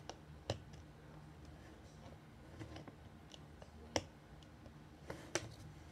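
Cap being screwed onto a thin plastic water bottle: a few scattered sharp plastic clicks, the loudest about four seconds in, over quiet room tone.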